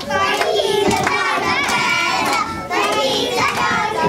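A group of young children singing together, several voices overlapping.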